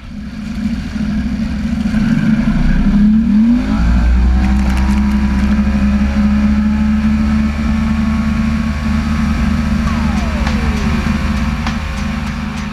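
Fishing boat's outboard motor running under way at speed, its pitch rising about three seconds in and then holding steady, with water rushing against the hull. A thin tone falls in pitch about ten seconds in.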